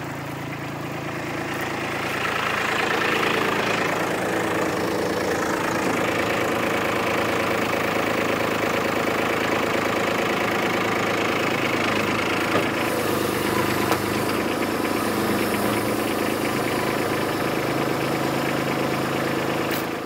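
Kubota B2601 compact tractor's three-cylinder diesel engine running steadily, growing louder about two seconds in as the tractor sets the quick-attach bucket down and backs away from it.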